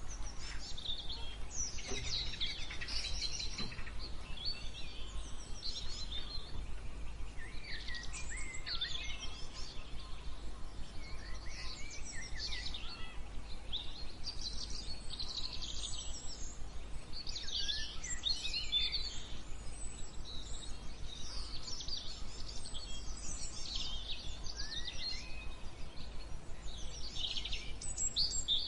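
Several songbirds chirping and singing in overlapping short phrases, over a steady low rumble.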